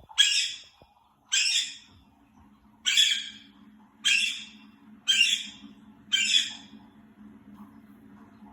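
Caique parrot screaming: six harsh, shrill screams, each about half a second long, roughly one a second. It is the sound this bird makes when it is not happy.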